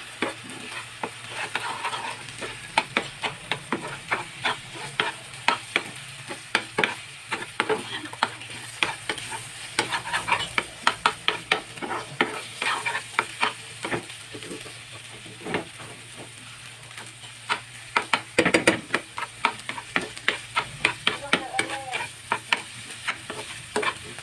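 Spatula scraping and knocking against a nonstick frying pan in quick, irregular strokes while the mixture of egg, chicken and grated squash sizzles as it fries. The stirring pauses briefly about two thirds of the way through.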